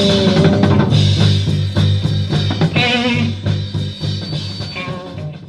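Background music with guitar and drums over a steady beat, fading out near the end.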